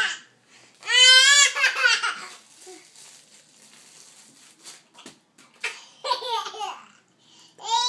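A baby laughing: a long, high, quavering giggle about a second in, then after a quiet stretch two shorter high bursts of voice near the end.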